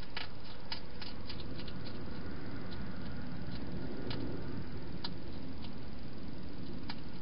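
European hedgehog eating at a feeding dish: irregular small sharp clicks of chewing, a quick cluster in the first second or so and sparser after, over a steady hiss.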